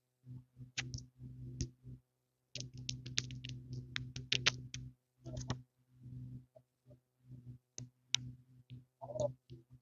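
Irregular sharp clicks and taps, some in quick runs, over a steady low electrical hum.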